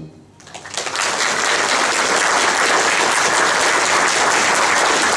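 Audience applause breaking out under a second in, just after the band's final chord cuts off, then carrying on steadily as a dense patter of many hands clapping.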